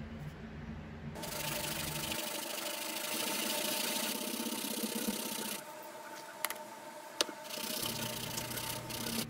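Wooden handle of a carpenter's square rubbed back and forth by hand on a sheet of sandpaper, a dry scratchy rasping as old paint is sanded out of the wood grain. The sanding stops for about two seconds midway, with two sharp clicks, then starts again.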